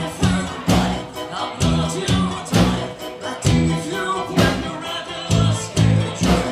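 A band playing a song: a steady drum beat, bass notes and a singing voice.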